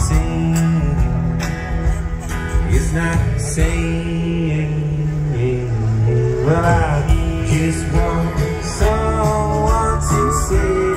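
Live music amplified through an outdoor stage PA: an acoustic guitar playing while a man sings.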